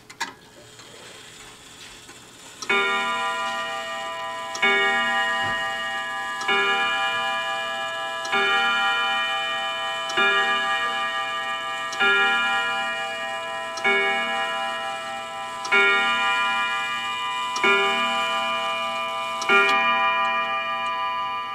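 Seth Thomas "Brookfield" banjo wall clock striking the hour on its gong rods. There are ten slow, evenly spaced strokes, starting a little under three seconds in and falling about two seconds apart, each ringing on until the next one lands.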